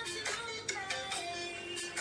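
Background pop music with a beat and a melody.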